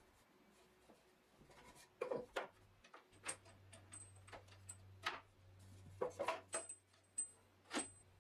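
Wooden jaw of a quick-release woodworking vise worked by hand, giving about half a dozen sharp knocks and clicks as the jaw is moved and the mechanism engages, with a few brief high-pitched tones between them.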